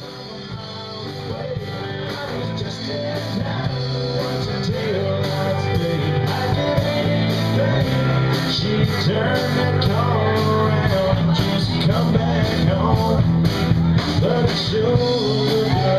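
Live band playing, with a singer, electric guitars and drums keeping a steady beat; the music grows louder over the first several seconds.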